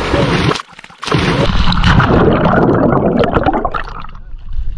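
People jumping feet-first into a bog pool: a loud splash at the start and another about a second later, followed by churning, gurgling water that dies down near the end.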